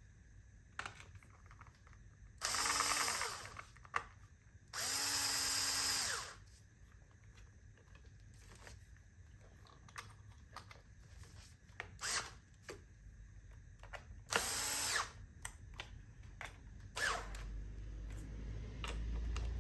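Cordless electric screwdriver running in three short bursts, the first two about a second long and the third shorter, each winding up and down as it drives screws in to fasten a mainboard. Light clicks and handling sounds come between the bursts.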